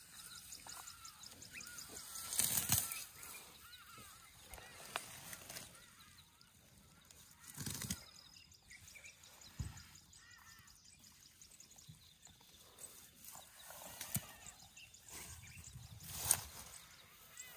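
Birds chirping and calling over and over in the background, with a few louder short rustling bursts from elephants grazing in the long grass right beside the microphone: about two and a half seconds in, near the middle and near the end.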